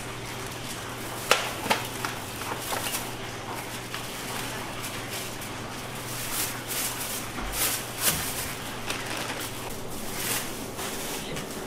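Thin plastic carrier bags rustling and crinkling as takeaway boxes are packed into them, with a few sharp knocks of containers on the counter about a second in, over a steady low hum.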